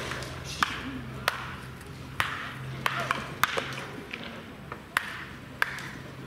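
Wooden baseball bats cracking against balls in soft-toss batting practice: about eight or nine sharp hits at irregular spacing, some from neighbouring batters. Voices murmur underneath.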